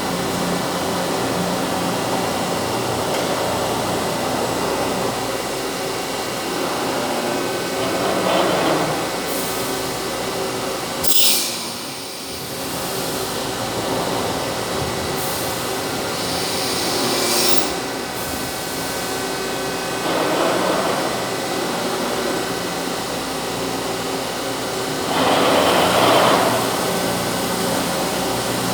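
CNC machine running with a steady mechanical hum. It swells louder a few times and gives two short, high hisses.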